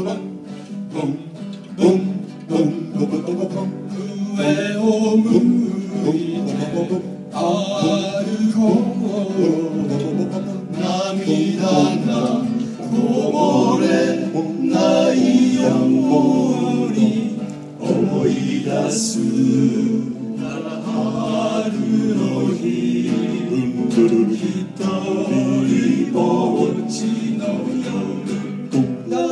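A small group of men singing together into microphones, accompanied by a strummed acoustic guitar.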